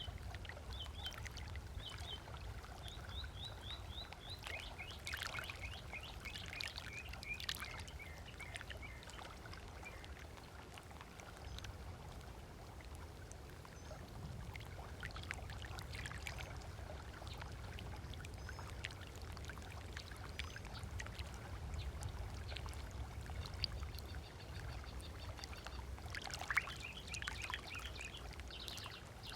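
Small waves lapping on a lakeshore, with a steady low rumble underneath, and birds calling over it: a run of quick chirps at the start, a falling series of notes a few seconds in, and a rapid even trill near the end.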